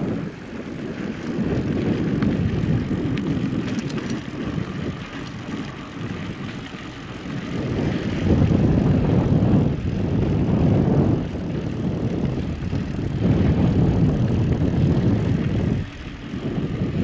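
GT Avalanche 29er mountain bike being ridden on a dirt trail: a low rumbling ride noise from the tyres and bike that swells and eases several times.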